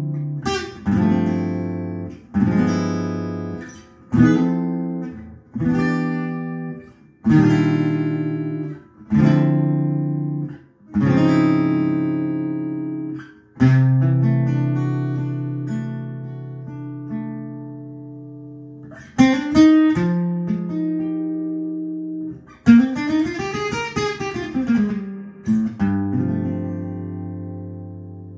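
Acoustic guitar playing slow strummed chords, each struck and left to ring and fade, with one long chord held and decaying about halfway through. A few more strums follow, and one chord near the end wavers up and down in pitch.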